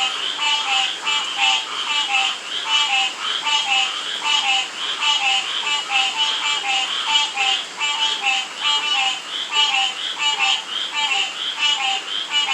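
A chorus of frogs and toads calling in the rain: short, slightly falling croaking notes with higher pulsed trills, repeating in quick, even succession over a steady hiss of rainfall.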